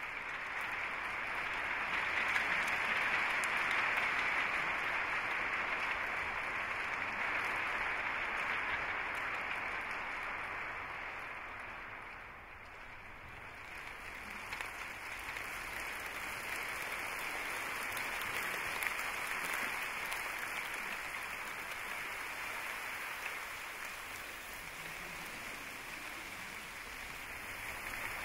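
A large audience rustling and crumpling sheets of paper together, a dense hiss-like rustle that swells, dips briefly about twelve seconds in, then builds again.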